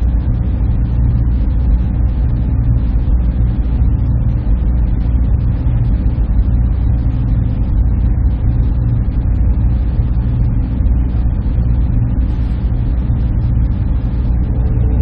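Steady drone of a server room: machines and cooling running continuously as a deep, even hum and rumble with a faint hiss above it.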